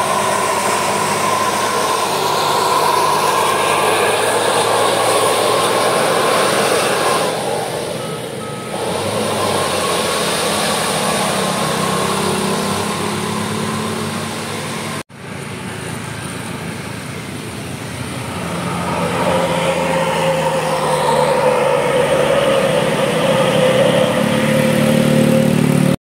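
Road traffic climbing a steep hairpin: a coach's diesel engine and passing cars and motorcycles running under load. The sound drops out briefly about halfway, then engine noise builds again as another vehicle approaches near the end.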